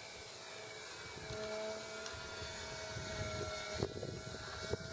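Radio-controlled aerobatic model airplane's motor and propeller humming steadily in flight, growing a little louder about a second in. Two sharp clicks near the end.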